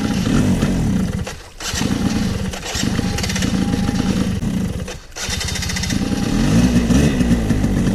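Quad bike engine running hard and revving. The throttle eases off sharply twice, about one and a half seconds and five seconds in, then the revs climb again near the end.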